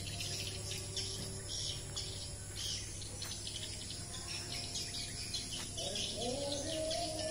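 Swiftlet calls: high, rapid twittering in repeated bursts about twice a second, over a steady low hum. A droning tone steps up in pitch and holds from about six seconds in.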